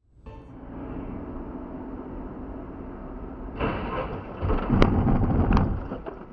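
Dashcam recording of vehicle noise: a steady rumble of a car driving on the road. About three and a half seconds in, a louder rushing noise begins. Two sharp knocks come about a second apart near the end.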